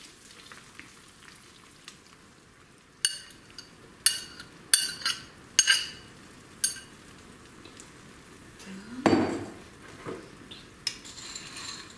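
Egg and melted cheese sizzling softly in a frying pan while a metal utensil stirs it, clinking sharply against the pan five or six times a few seconds in and lightly again near the end. A short duller knock sounds about nine seconds in.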